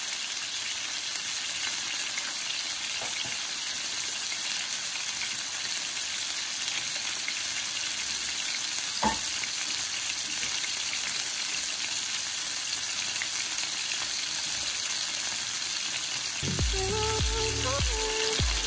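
Chicken pieces sizzling in hot oil in a nonstick frying pan: a steady frying hiss, with a single click about nine seconds in. Music comes in near the end.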